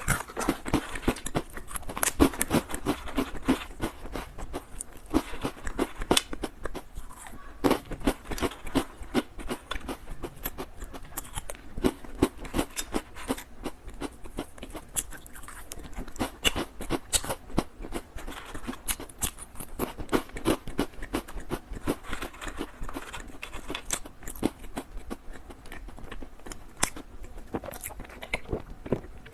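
Close-miked crunching and chewing of small cheese-flavoured biscuits: a dense, irregular run of sharp crisp crunches.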